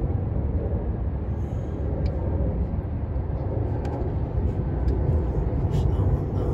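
A steady low rumble, with a few faint light clicks as hands work hose and wiring connectors on an engine's intake.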